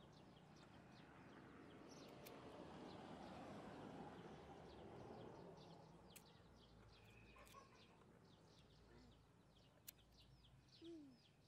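Faint small birds chirping in the background, many short, quick chirps over a low hush of outdoor noise.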